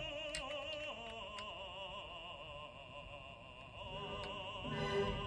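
Quiet background music of operatic singing with a wide vibrato. A few faint clicks of plastic LEGO pieces being handled and fitted come through about half a second and a second and a half in.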